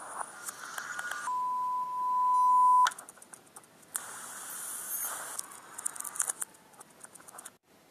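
A single steady, high-pitched electronic beep lasting about a second and a half, the loudest sound here, followed by rustling and handling noise with scattered clicks.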